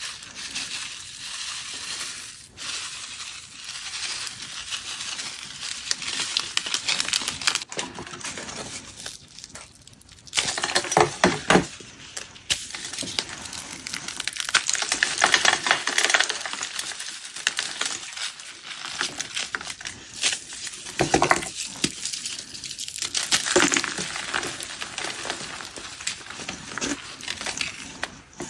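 Metallic confetti poured and scattering with light clinks, then a pressed block of gym chalk coated in Holi powder crushed and crumbled by hand. The crushing gives dry, crisp crunches that grow loud several times from about ten seconds in, with powdery crumbling between.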